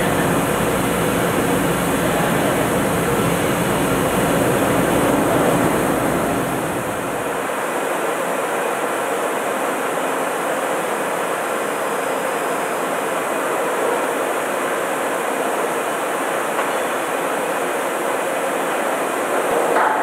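Steady, loud machinery noise on an offshore drilling rig's drill floor. A deep low rumble in it drops out abruptly about seven and a half seconds in, leaving a steadier hiss-like din.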